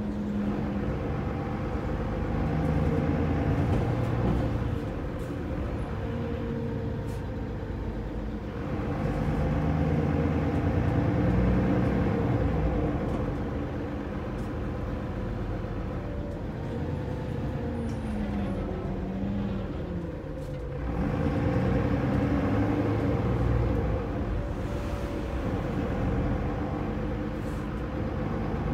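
Mercedes-Benz Citaro O530 bus's OM906LA turbo-diesel straight-six engine and automatic gearbox running, heard from inside the passenger saloon. The engine note swells and eases several times, and there is a falling-then-rising whine about two-thirds of the way through.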